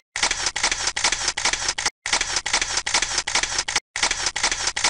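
Camera shutter firing in rapid bursts, about six clicks a second, each run lasting about two seconds and broken by short silences about two and four seconds in.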